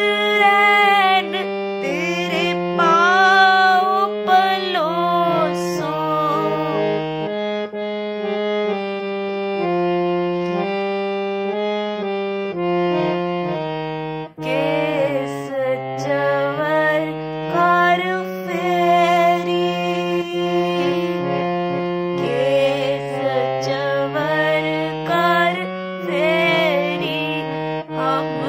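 Harmonium playing a simple shabad kirtan melody note by note, its reeds sounding sustained chords. A voice sings the shabad over it in stretches, gliding between notes.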